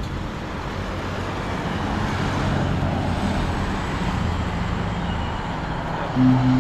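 Road traffic passing: car and motorbike engines with tyre noise, building about two seconds in. Near the end a vehicle's engine draws close and gets louder.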